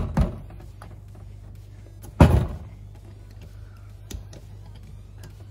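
Knocks and a heavy thud of parts and tools handled on a metal workbench while a wrist-pin clip is fitted into a piston: two quick knocks at the start, a louder thud about two seconds in, and a faint click near four seconds, over a steady low hum.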